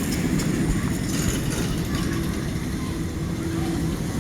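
A roller coaster train running along its track, heard as a steady rumble mixed with wind noise on the microphone.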